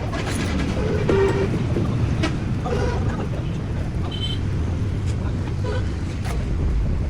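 Steady low rumble of vehicle traffic with brief distant voices, and a short high horn toot about four seconds in.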